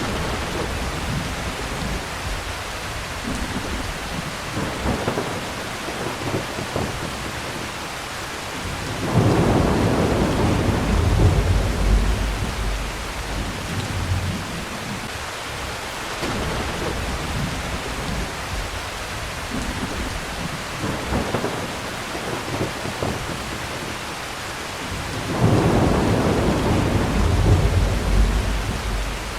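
Steady rain with two long rolls of thunder, the first about a third of the way in and the second near the end.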